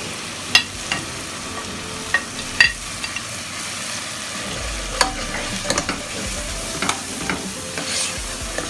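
Onion and ginger-garlic masala sizzling in oil in a pot, with ground spices freshly added for frying. A metal spoon stirs through it, scraping and knocking against the pot now and then.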